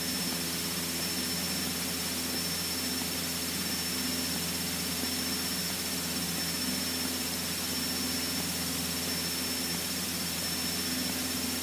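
Cessna 152's four-cylinder Lycoming engine and propeller running at a steady, unchanging speed: a constant drone with hiss over it and a faint steady high whine.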